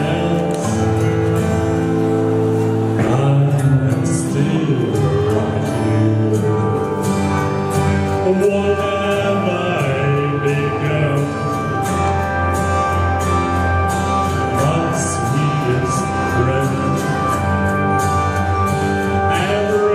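A man singing through a handheld microphone over instrumental backing music.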